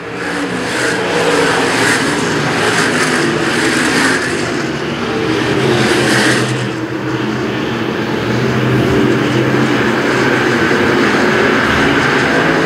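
A pack of dirt-track stock cars racing, their engines running together. The noise is loudest and harshest for the first seven seconds or so as cars pass close by, then settles to a steadier drone of the field going around the track.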